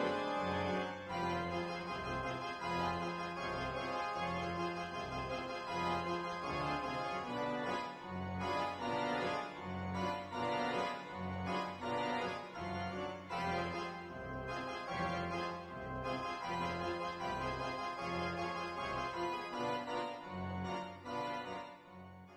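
Background music led by an organ-like keyboard over a steady, rhythmic bass line, fading out at the end.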